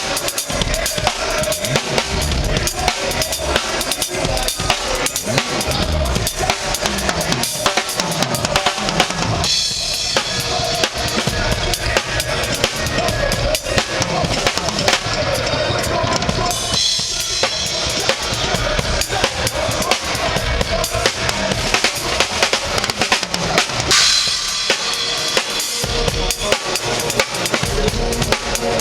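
Drum kit played steadily, with fast, dense kick and snare strokes throughout and cymbals washing in more heavily at a few points.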